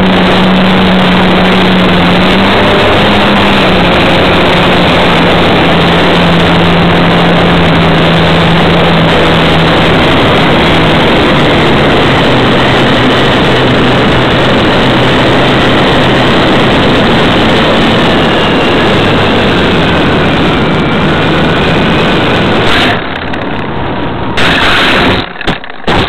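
Onboard audio from an RC Cessna model plane in flight: heavy wind rush over the camera's microphone with the motor's steady hum, its pitch dropping about halfway through and rising again later. Near the end the rush breaks off, followed by a few sudden loud jolts that fit the plane touching down.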